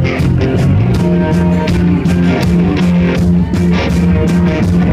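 Live rock band playing an instrumental passage: electric guitar over a steady drum beat.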